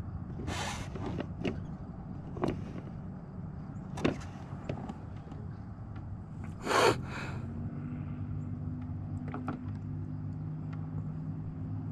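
A few knocks and a short loud brushing burst from gear being handled in a fishing kayak, then, about seven seconds in, a steady low electric motor hum starts and keeps running.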